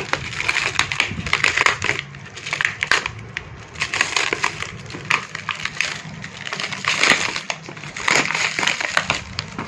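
Plastic packaging of a tyre puncture repair kit being handled and opened by hand, with repeated irregular crackling and crinkling rustles.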